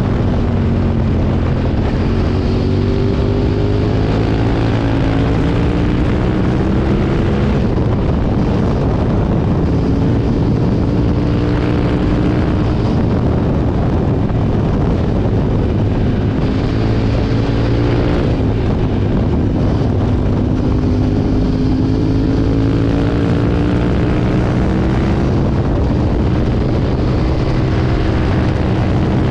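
Aprilia Tuono V2's V-twin motorcycle engine running under way, its pitch climbing for a few seconds and then dropping back several times as the rider accelerates and eases off, over steady wind rush.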